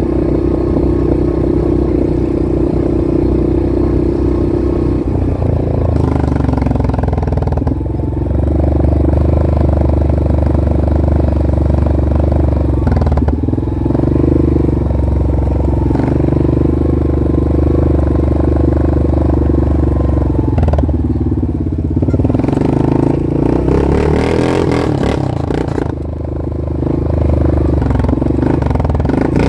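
Off-road vehicle engine running as it drives a trail, its engine note shifting up and down several times with the throttle, with short dips about a third and two thirds of the way through and a drop near the end.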